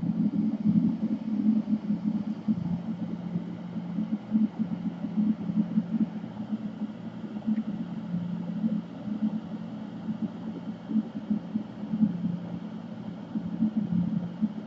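Soldering fume exhaust fan running steadily, a low hum with an airy rush.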